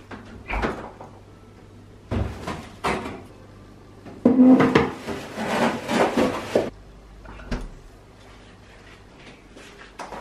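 Upright freezer being opened and loaded: a click as the door opens, knocks as a plate is handled, then a longer scraping rattle as the plastic freezer drawer slides out and back in with the plate, and a thud as the door shuts. A faint steady hum sits underneath.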